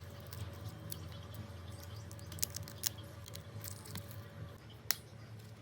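Light clicks and taps from handling small plastic parts, with three sharper clicks, about two and a half, three and five seconds in, over a low steady hum.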